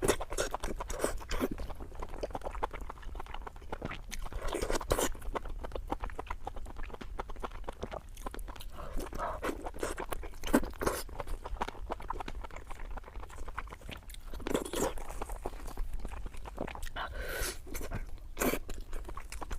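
Close-miked mouth sounds of a person eating fatty meat: wet chewing with irregular crunches and smacks, and a few louder bites scattered through.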